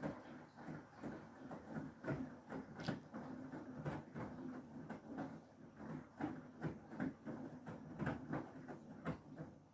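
Beko WTK104121W washing machine drum turning slowly, crammed with a wet feather and down duvet: a run of irregular soft thuds and swishes as the heavy load tumbles.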